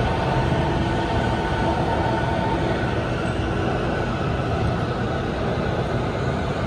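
Shenzhen Metro Line 14 train pulling out of the station: a steady rumble of the train running, with a faint whine that fades out about two and a half seconds in.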